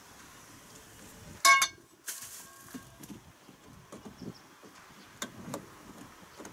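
Erector pipe frame being handled and fitted together. There is a sharp, ringing clink about one and a half seconds in, a brief scraping rustle right after it, then a few lighter knocks.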